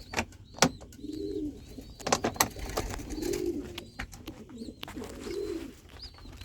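Domestic racing pigeons cooing in a loft: about four low, humming coos, with short high peeps and several sharp clicks.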